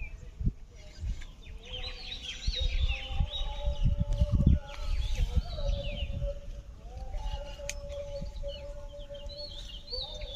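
Birds chirping: many short, quick high calls repeating throughout. Over them runs a steady lower tone, and low rumbling thumps come in around the middle.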